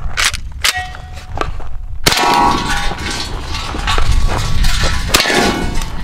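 Beretta 1301 Tactical 12-gauge semi-automatic shotgun firing: a sudden loud shot about two seconds in and another about five seconds in, each with a metallic, clanging ring. A few lighter sharp clicks and a short ring come in the first second and a half.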